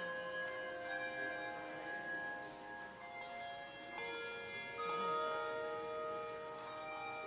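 Handbell choir playing a hymn tune: a few chords of bells are struck and left to ring on, with new notes coming in about a second in and again around four and five seconds in.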